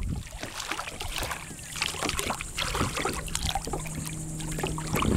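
Small irregular knocks and scrapes against a kayak hull with water lapping and trickling, as a manatee mouths the boat.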